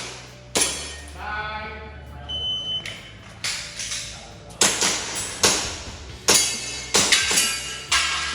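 An IPSC shot timer gives one short, high start beep about two seconds in. About a second later comes an irregular string of sharp shots from an airsoft gas pistol, each with a brief ringing tail, as a stage is shot. A single shot sounds just before the beep.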